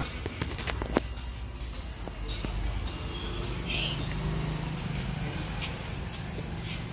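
A steady, high-pitched shrill tone, with a few sharp clicks about half a second to a second in, over a low background hum.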